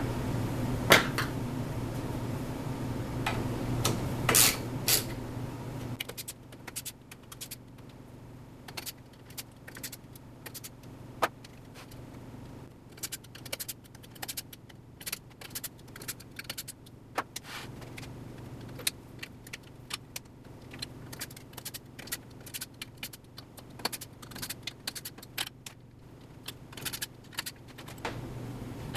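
Scattered small metallic clicks and clinks as a T-handle hex driver tightens the bolts holding aluminium linear rails and a quick-grip bar clamp draws the rails together.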